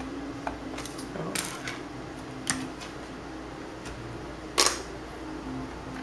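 Sharp plastic clicks and snaps from a Toshiba L635 laptop's bottom access panel being worked on its clips, about half a dozen, with the loudest snap about four and a half seconds in.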